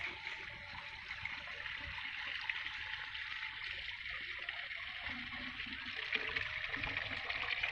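Water poured steadily from a bucket through a cloth hose into a diesel water pump's suction pipe, with some gurgling: the pump is being primed before starting.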